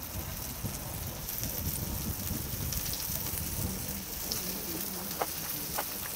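Pork belly and scallops sizzling in a hot pan: a steady crackling hiss, with a few light taps near the end.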